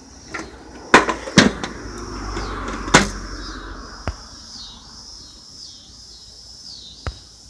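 Several sharp knocks and clunks, the loudest about a second in and near three seconds, over a steady high-pitched drone.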